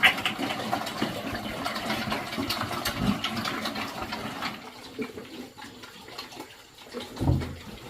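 Water splashing and running, with small knocks and clatters, quietening about halfway through.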